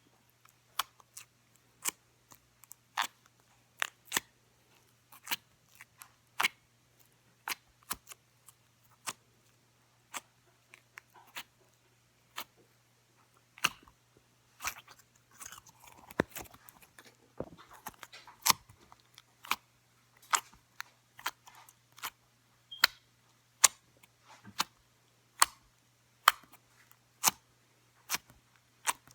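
Slime being poked, giving sharp clicking pops about once or twice a second as air pockets burst, with a stretch of denser, softer squishy crackling about halfway through.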